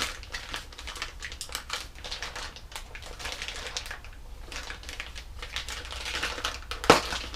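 Close-up handling noise: rapid, irregular clicking and crinkling, with one sharp click about seven seconds in.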